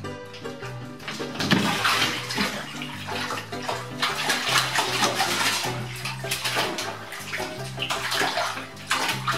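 A cat splashing in a full bathtub, thrashing the water as it scrambles to climb out over the edge. A loud splash comes about a second and a half in, and the splashing goes on in surges after it.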